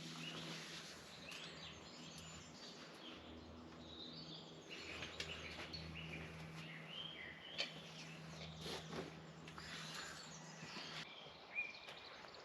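Faint birdsong: scattered short chirps and calls over a low background hiss, with a few soft clicks and a faint steady low hum.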